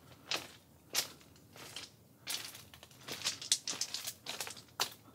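Footsteps crunching on railway ballast gravel and scattered debris, about eight uneven steps.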